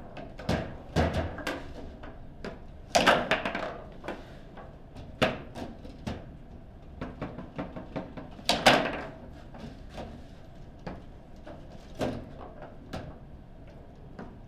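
Foosball table in play: irregular sharp knocks and clacks of the ball struck by the plastic player figures and of the rods being worked. Loudest about three seconds in and again near nine seconds, with smaller knocks scattered between.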